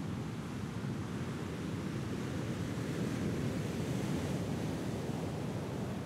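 Big ocean waves breaking and churning, a steady rushing rumble that grows a little louder midway, with wind on the microphone.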